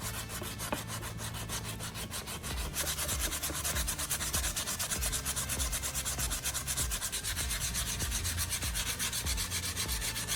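Sanding pad rubbed by hand over a hardened superglue-and-baking-soda patch on a plastic motorcycle fender, in quick, even strokes that grow louder about three seconds in; the patch is being sanded flush with the surrounding plastic.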